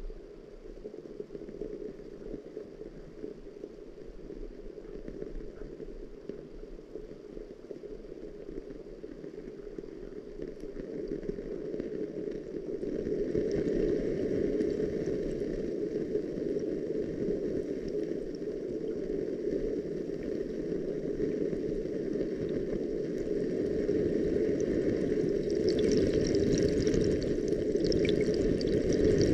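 Muffled rushing, gurgling water ambience, low and dull as heard underwater. It swells louder a little under halfway through and brightens again near the end.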